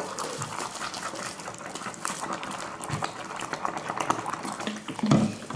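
Wet, sticky slime being worked and mixed, with irregular squishing and small crackles. A short vocal sound comes near the end.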